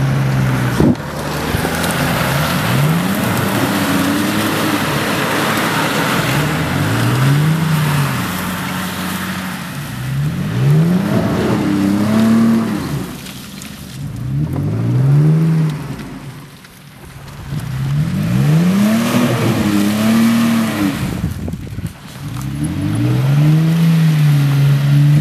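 Off-road 4x4's engine revved up and down again and again, about every three seconds, over a rushing noise of tyres churning through deep mud.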